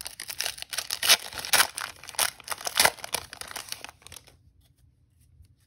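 Foil wrapper of a Donruss Elite football card pack being torn open and crinkled by hand: a run of sharp crackles that stops about four seconds in.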